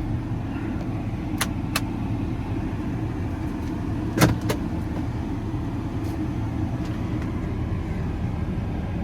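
Ford 6.7 Power Stroke V8 diesel idling steadily, with a few short sharp clicks over it.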